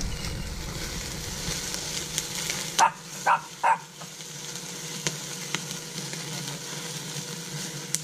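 Open wood fire crackling and hissing steadily, with a few sharp pops, as small birds roast on skewers held over the flames. A dog yips three times in quick succession about three seconds in.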